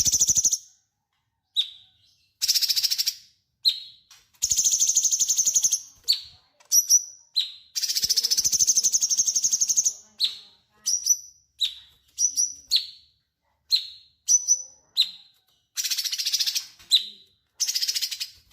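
Cucak cungkok singing vigorously: bursts of rapid, high-pitched chattering trills a second or two long, alternating with short single chirps and brief pauses.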